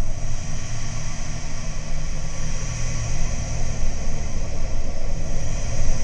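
Home-made dark ambient soundscape meant as a blizzard with metallic grinding and steam: a steady deep rumble under a high hiss, threaded with faint thin ringing tones, swelling and easing slowly every few seconds.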